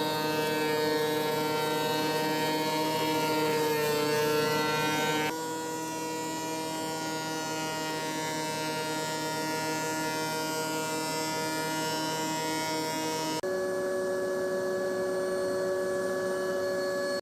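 Woodworking milling machine running with a steady, high, buzzing whine. Its pitch shifts abruptly twice, about five and thirteen seconds in.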